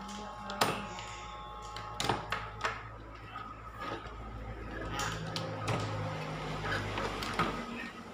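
Scattered sharp clicks and knocks of a CRT TV's main circuit board and its wiring being handled and pulled out, over a faint steady hum.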